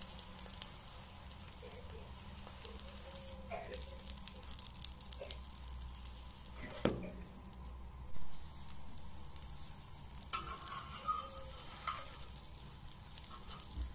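Egg-dipped bread sandwich sizzling steadily in oil on a hot iron tawa, with fine crackling. A sharp knock comes about seven seconds in, and a louder thump about a second later.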